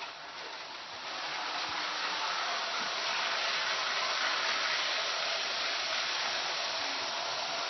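Toy electric train running on its track, a steady hissing whir of motor and wheels that grows louder about a second in as the train comes close.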